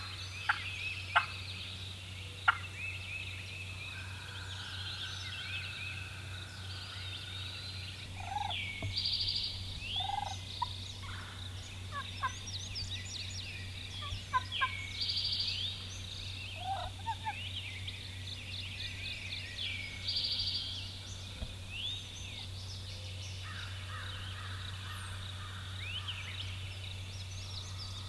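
Wild turkeys calling: a few sharp, loud notes in the first seconds, then short turkey calls now and then. Songbirds sing throughout, over a low steady hum.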